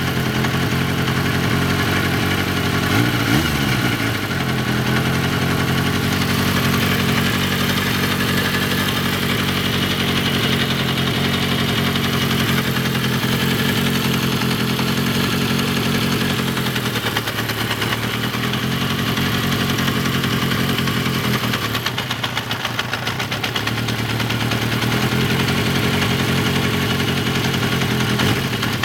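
Warmed-up car engine idling with a clattering rattle; the engine speed rises briefly about three seconds in and sags twice later on.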